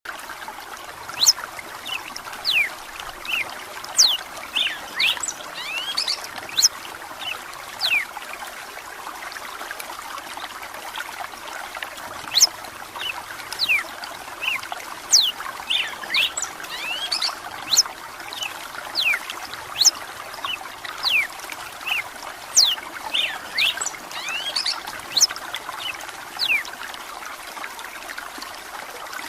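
Red-cowled cardinal (galo-de-campina) singing in bouts of quick, sharp, down-slurred whistled notes, with short pauses between bouts, over a steady trickle of running water.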